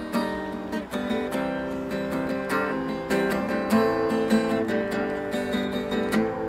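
Guitar strummed through a made-up chord progression, with repeated strokes and changing chords. It is played with its low E string snapped off.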